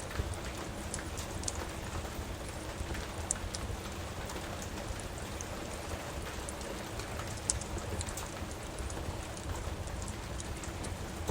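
Steady rain, with scattered sharp pops and crackles from a wood fire burning in a fireplace.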